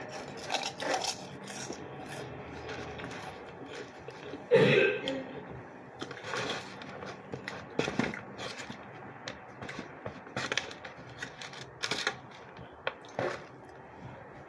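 Chewing and mouth sounds from eating a sandwich, with scattered short smacks and clicks, and one loud cough about four and a half seconds in as the food tickles the back of the throat.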